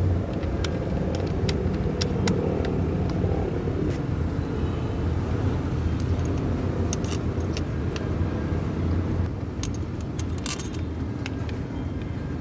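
Vehicle engine running steadily with a low hum, with scattered light metallic clicks and clinks, a cluster of them about ten seconds in.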